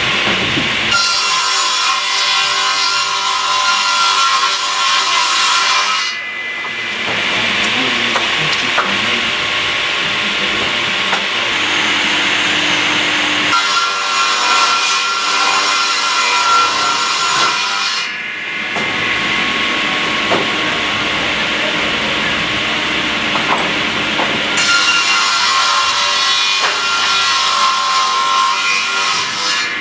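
Lignuma MN-315 three-blade edging saw running and cutting boards three times, each cut lasting about five seconds and carrying a high, many-toned blade whine. Between the cuts the machine runs with a steadier noise.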